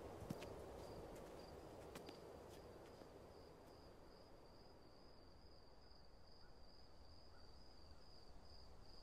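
Crickets chirping faintly: a thin, high, steady trill that sets in about a second in, after a few faint taps. It stands for the phantom crickets heard when none were there, the first sign of hearing loss.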